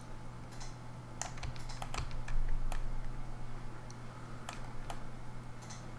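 Irregular clicking of a computer keyboard and mouse, a dozen or so scattered taps, over a steady low hum.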